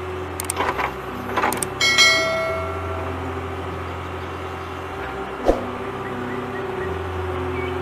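Subscribe-button sound effects: a few quick mouse clicks, then about two seconds in a bright bell chime that rings and fades, over a steady low hum. A single sharp knock comes a little after five seconds in.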